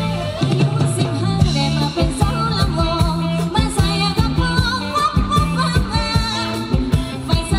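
A live Thai ramwong dance band playing with a steady drum beat and a singer's wavering melody on top.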